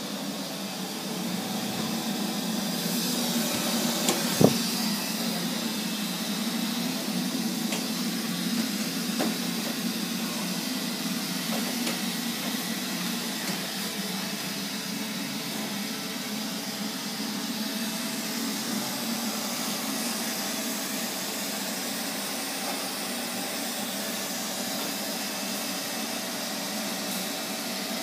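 Neato XV-25 robot vacuum cleaner running, a steady whirr of its suction fan and brush. There is one sharp knock about four seconds in, with a few fainter clicks later.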